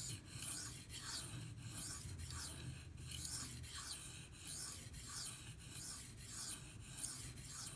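Steel knife blade stroked back and forth across the 2000-grit side of a Venev bonded diamond sharpening stone: a faint, rhythmic scraping hiss at about two strokes a second.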